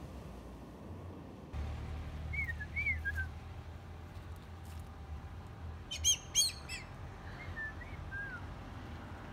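A bird calling: short falling whistled notes a couple of seconds in and again later, with two harsh squawks about six seconds in.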